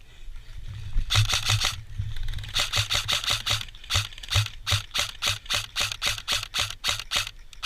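Airsoft electric M249 light machine gun (G&P M249 SF) firing: two longer bursts in the first few seconds, then a rapid string of short bursts, with the gearbox motor humming under the shots.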